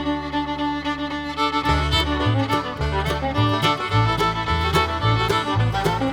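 Background music with fiddle, in a bluegrass or country style, over a moving bass line.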